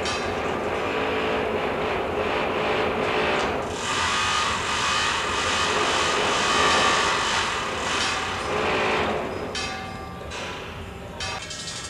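A sound installation of assembled found objects putting out a dense, steady wash of noise with faint tones in it, which drops in level and thins out about nine and a half seconds in.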